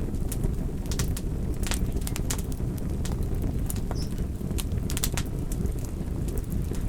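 Wood fire in a fireplace crackling: sharp, irregular pops and snaps, several a second, over a steady low rumble.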